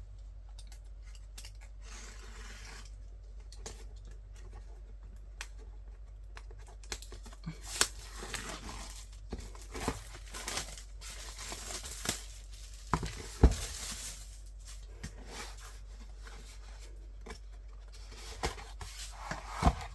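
Packaging of a boxed photobook set being opened: plastic wrap crinkling and tearing, with scattered taps and clicks of handling. The rustling is thickest in the middle, and the loudest click comes about two-thirds of the way through.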